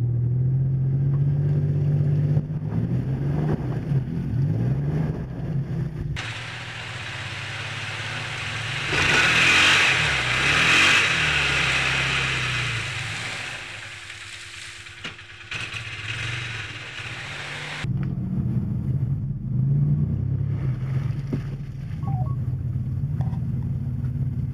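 Off-road vehicle engines running and revving on a muddy trail, heard from inside a cab. About six seconds in the sound switches abruptly to a louder, hissy rush that peaks a few seconds later, and near two-thirds of the way through the low engine hum in the cab returns.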